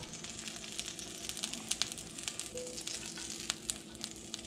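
Stick of butter melting and sizzling in a hot cast-iron skillet, with a steady hiss and many small crackling pops.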